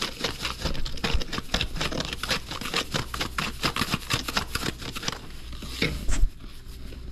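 Salt shaken from a Morton salt canister over shrimp in a plastic container: a quick, rhythmic patter of shakes, stopping about five seconds in. A single low knock follows about a second later.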